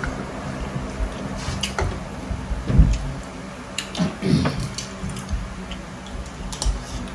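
Eating sounds at a king crab seafood boil: chewing and handling of crab legs, with scattered sharp clicks and a couple of louder wet bursts about three and four seconds in.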